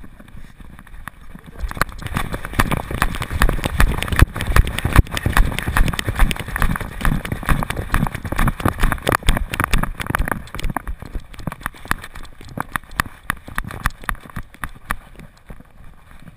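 Dog running on a paved lane, heard through a GoPro strapped to its head: a fast, rhythmic run of thuds and knocks from its strides jolting the camera. Loudest from about two seconds in, softening from about ten seconds in as the dog slows.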